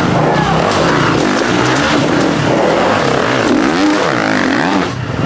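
Enduro dirt bike engines revving as the bikes ride past close by, the pitch rising and falling with the throttle.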